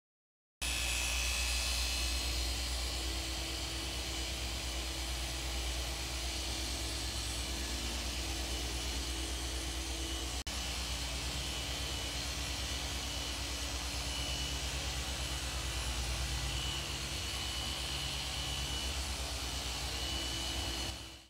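Electric orbital car polisher with a foam pad running steadily as it buffs car paint.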